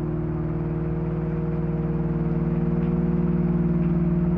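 Ambient modular-synthesizer drone from VCV Rack: several steady low tones held together over a hiss-like haze, with a fast flutter in the bass, slowly swelling in loudness.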